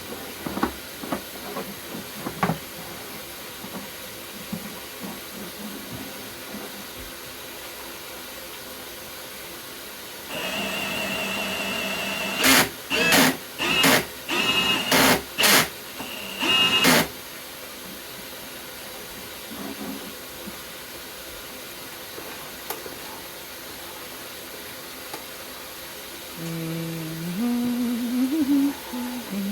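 Milwaukee M18 Fuel cordless hammer drill spinning a Flexshaft cable in a sewer line to cut a last small tree root: a steady motor whine for a few seconds, then the trigger pulsed in several short surges, over a steady hiss.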